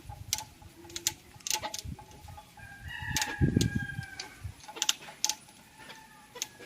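A rooster crowing once in one long, slightly falling call about halfway through, over scattered sharp clicks and knocks.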